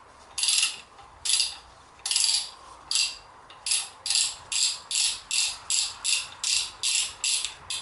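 Ratchet wrench spinning out the backup light switch on a Toyota T50 gearbox case. Each back-swing of the handle gives a short run of pawl clicks. The strokes come about a second apart at first and quicken to about two or three a second as the switch loosens.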